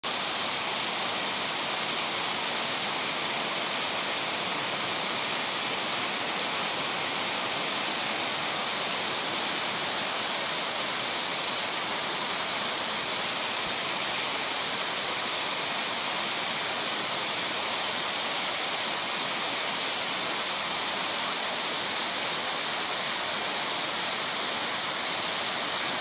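A tall waterfall plunging down a cliff, heard from the top of the drop: a steady rushing hiss of falling water with little low rumble.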